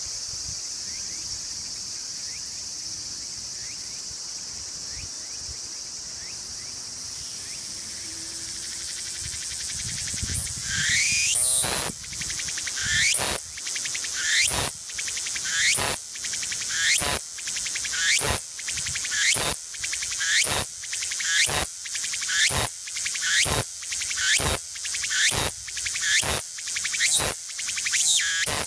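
Tsukutsuku-bōshi cicada (Meimuna opalifera) singing. A steady high buzz runs for about the first ten seconds, then rises in a sweep into the species' rhythmic 'tsuku-tsuku-bōshi' phrases, repeating about once every 1.2 seconds.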